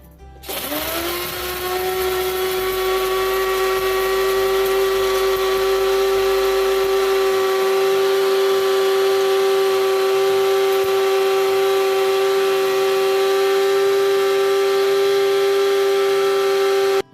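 Electric mixer grinder (mixie) grinding coarsely pounded dry ginger and black pepper to powder. Its motor starts about half a second in, spins up to a steady high whine within a second or so, then stops abruptly near the end.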